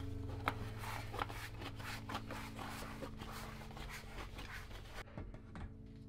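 Tan-wall road tyre being pushed onto a Zipp deep-section rim by hand: a run of short rubbing and scraping sounds as the rubber bead is thumbed over the rim edge.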